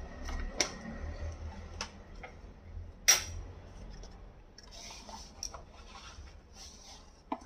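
A few light clicks and taps of kitchen items being handled, the sharpest about three seconds in. Soft rustling follows in the later part.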